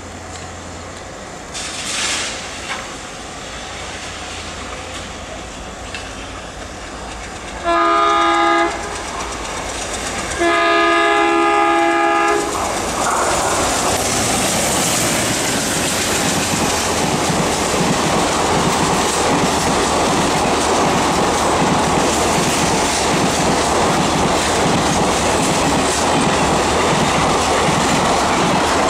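Erode-shed ALCO diesel locomotive sounding its multi-tone horn twice, a short blast then a longer one, then passing at speed, loud, with the coaches' wheels clattering over the rails.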